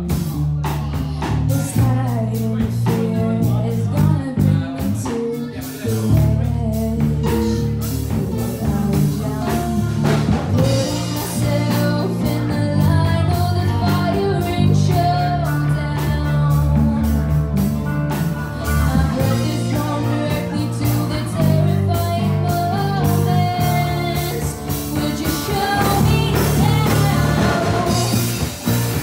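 A live rock band playing: a singer's sung melody over electric guitar, electric bass and a drum kit.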